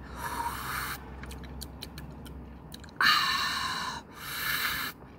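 A person slurping noodles: three hissing slurps, the loudest starting suddenly about three seconds in, with soft mouth clicks between them.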